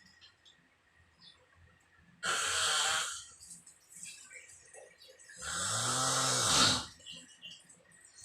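A person snoring loudly in sleep: two snores about three seconds apart. The first is a noisy rasp; the second is longer, with a low vibrating tone that rises and falls.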